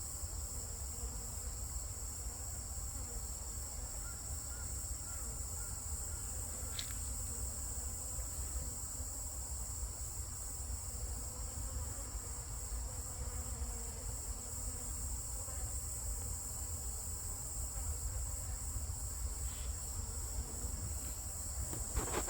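Native Korean honeybees buzzing faintly as they fly in and out of the hive entrance, foragers bringing in pollen, under a steady high-pitched insect chirring.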